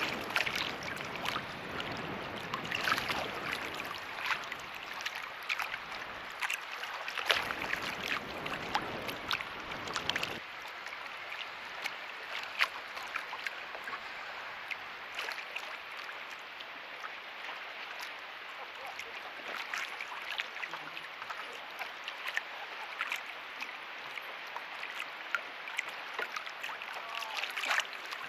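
Small choppy waves lapping and splashing irregularly against a camera mount sitting just above the lake surface. A low rumble runs under it for about the first ten seconds and then stops abruptly.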